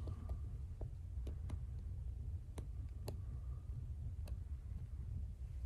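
Quiet room tone: a steady low hum with about seven faint, sharp clicks at uneven intervals.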